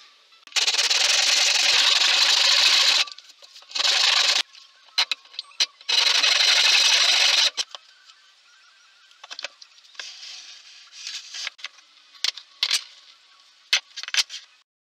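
MDF scraping against a hard surface in three stretches, about two and a half seconds, half a second, then a second and a half. After that come light knocks and taps of MDF pieces being handled and set down.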